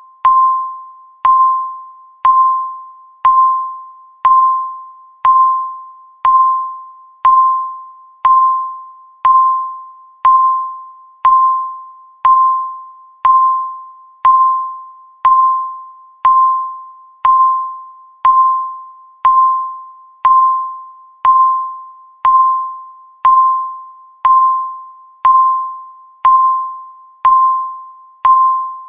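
Countdown timer's tick sound: a sharp, bell-like tick with a clear ringing tone that fades quickly, repeating once every second.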